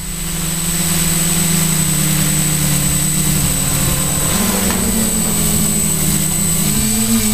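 Camera drone's electric motors and propellers buzzing steadily, with a constant high whine over the hum. The pitch steps up about four seconds in and again near the end as the motors change speed.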